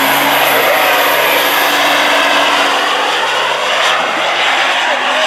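Semi truck's diesel engine running flat out under heavy load, pulling a weight-transfer sled: a loud, steady drone that holds an even pitch.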